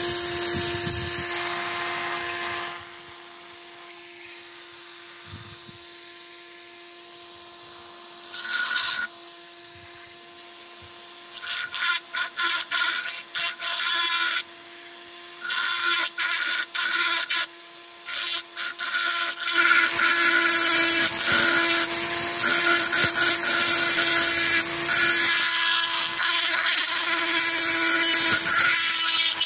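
Handheld rotary engraving tool with a ball burr, its small motor whining steadily while the burr grinds into wood. The grinding comes in short repeated strokes in the middle and runs almost continuously in the last third as the letter grooves are cut.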